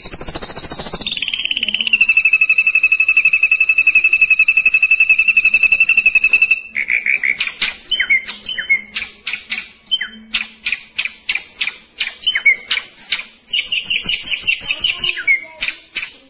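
Ashy drongo singing: a long, rapid, even trill for the first several seconds, then a run of short, sharp, varied notes, and another quick trill near the end.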